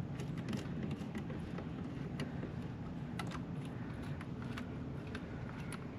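Scattered, irregular light clicks and taps of hand tools and plastic engine-cover parts being handled and fitted, over a steady low background hum.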